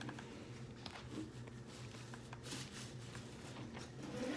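Quiet room tone: a steady low hum with a few faint clicks and rustles.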